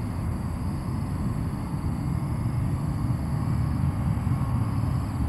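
Distant Airbus A330-200 jet engines rumbling low and steady as the airliner moves on the runway.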